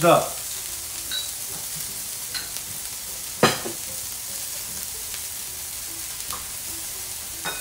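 Lamb chops sizzling steadily on a hot tabletop grill plate, with a single sharp knock about three and a half seconds in.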